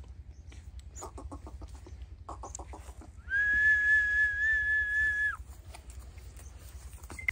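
A person whistling one long, steady note for about two seconds, held on a single pitch, near the middle. Before it come two short bursts of rapid ticking.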